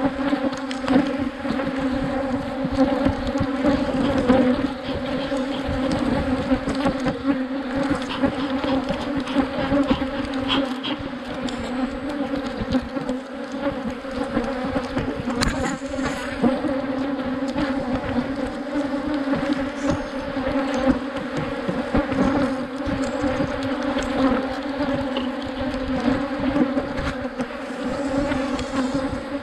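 A mass of Africanized honeybees buzzing as a dense, steady hum around a hive that is being worked, with a few faint clicks.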